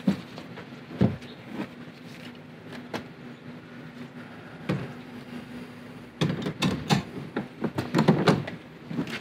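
Socket ratchet wrench on a long extension clicking as it turns a special service tool down into a fuel tank, to push out the plastic tab of the tank's inlet check valve. A few separate clicks at first, then a dense run of clicking and clatter from about six seconds in.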